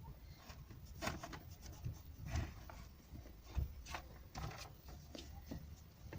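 Cloth dampened with WD-40 wiping and rubbing grime off the parts inside a car's steering-wheel horn assembly: a run of short, irregular scrubbing strokes.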